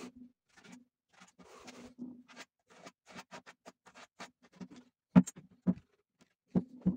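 Irregular light tapping and scratching, with a few sharper knocks: two about five seconds in and two near the end.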